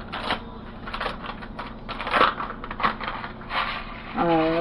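A plastic Cock Soup seasoning sachet crinkling and tearing in the hands, a string of irregular crackles as it is ripped open and emptied.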